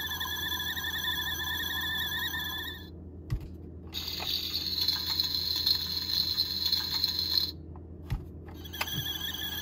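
Fisher-Price Loving Family dollhouse toy stove playing its electronic sound effects: a wavering high electronic tone that stops about three seconds in. After a click, pressing the red burner brings a sizzling hiss for about three and a half seconds, then another click and the wavering tone comes back near the end.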